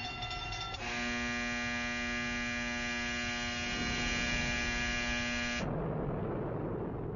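Steady electrical hum with many overtones, giving way about five and a half seconds in to a low rumble.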